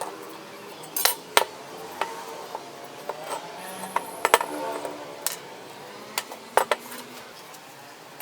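Pieces of metal being handled, knocking and clinking together in about eight irregular sharp clanks, the loudest about a second in and in the middle, with a faint metallic ring between them.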